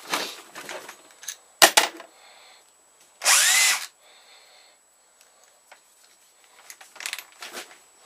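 Electric drill triggered for a short burst of under a second, its motor whine rising and falling in pitch. Before it come knocks and clatter as tools are handled on the workbench.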